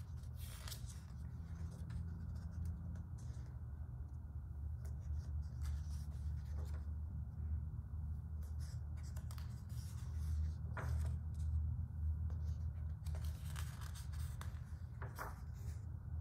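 Pages of a large art book being turned by hand: paper rustling and sliding in several short bursts, the fullest near the end, over a steady low hum.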